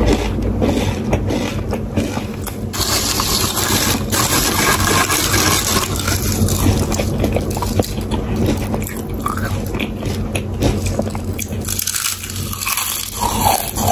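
Close-miked chewing and crunching of Lay's potato chips, a steady crackle of crisp chips breaking between the teeth, with a fresh bite into a handful near the end.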